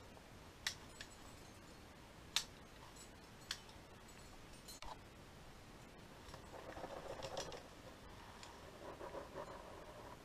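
A few sharp clicks of climbing gear such as carabiners being handled at the harness, about four in the first five seconds, then rustling of rope and clothing from about six seconds in.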